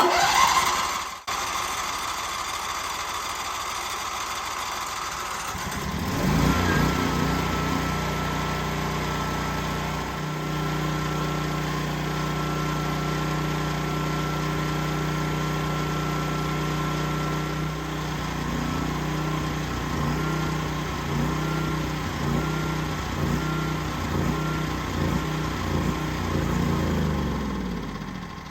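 Champion TriFuel portable generator's gasoline engine starting on its electric starter, then rising about six seconds in to a steady run. The pitch wavers unevenly in the last third, and the engine stops near the end.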